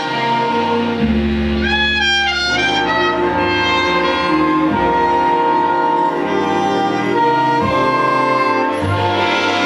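Jazz big band playing live: brass and saxophones sounding together in sustained chords over a low bass line, with a trumpet among the horns.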